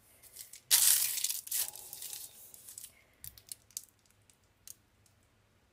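Plastic piping bag crinkling and rustling as it is picked up and handled, loudest for about a second, followed by a few faint light clicks and taps.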